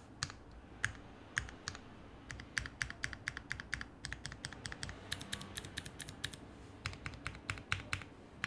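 Custom Polaris mechanical keyboard being typed on: an FR4 half-plate with lubed and filmed Cherry HyperGlide Black linear switches, lubed Zeal stabilizers and CRP keycaps. Separate keystrokes at first, then quicker runs, with a fast flurry about five seconds in.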